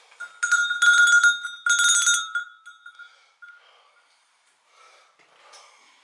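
A small metal bell rung three times in quick succession, with a clear ringing tone that carries on for about a second after the last strike.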